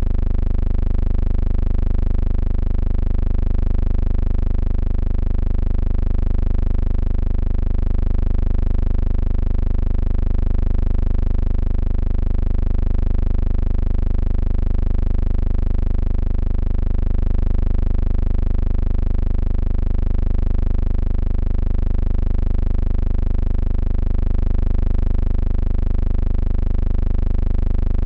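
A steady low hum with a buzz of overtones, unchanging in pitch and level throughout.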